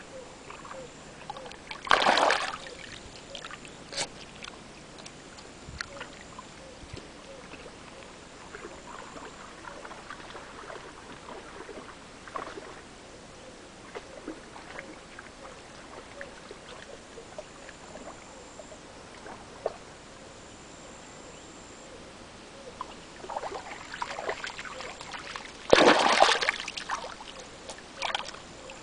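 A border terrier wading and splashing in shallow lake water, with small sloshes and drips throughout. Two loud splashes stand out, one about two seconds in and one near the end, with a flurry of smaller splashes just before the second.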